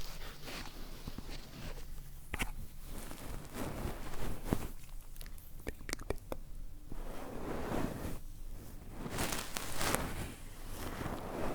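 Close-miked ASMR trigger sounds: irregular crunchy rustling from objects handled at the microphone, with a few sharp clicks.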